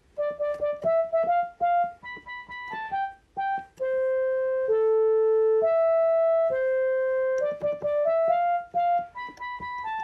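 Simple single-note melody played on a Yamaha PSS portable electronic keyboard. Mostly short notes, with a few held for about a second each in the middle of the tune.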